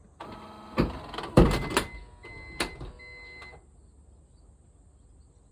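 Rear power sliding door of a Honda Step WGN (RP4) running on its motor, with a whine, several sharp clunks and a thin high squeal before it stops about three and a half seconds in. This is the abnormal door noise that still comes back now and then after the door was greased, which the owner suspects is a fault.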